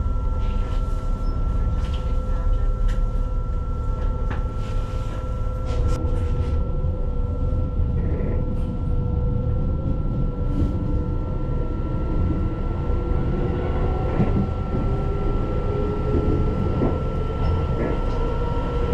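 Keihan electric train heard from inside the carriage: a steady electrical hum with a high whine and low rumble while it stands at the platform, with a few sharp clicks early on. From about two-thirds in, a motor whine slowly rises in pitch as the train pulls away.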